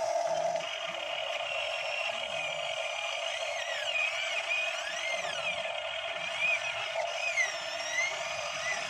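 Electric motors and gearboxes of radio-controlled model excavators whirring steadily as they dig in mud, the whine rising and falling in pitch as the arm and boom move.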